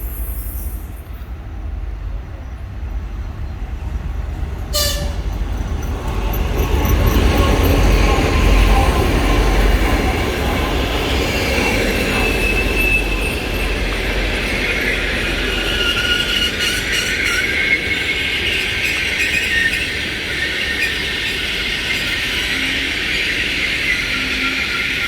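A passenger train hauled by a 2TE10UK two-section diesel locomotive passing close by: a deep locomotive rumble that builds and is loudest after about seven seconds, then the carriages rolling past with wavering, high-pitched wheel squeal.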